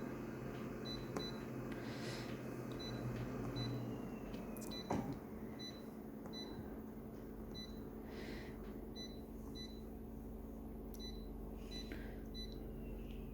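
Photocopier humming steadily, with short high beeps repeating roughly every three quarters of a second and a single click about five seconds in.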